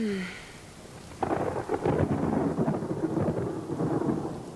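A loud, rough rumbling noise, like thunder, starts about a second in and keeps going, after the end of a woman's spoken line.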